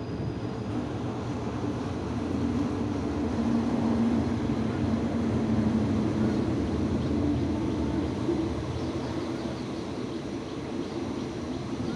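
A State Railway of Thailand diesel locomotive hauling a passenger train past. Its engine drone swells to its loudest a few seconds in as the locomotive goes by, then eases as the coaches rumble past on the rails.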